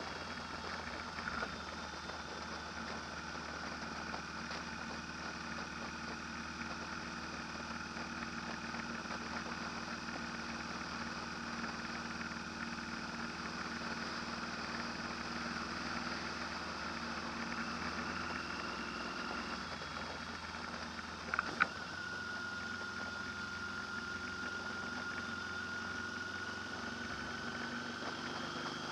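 A steady mechanical drone, like a motor or engine running at a constant speed. A short, sharp knock comes about two-thirds of the way in.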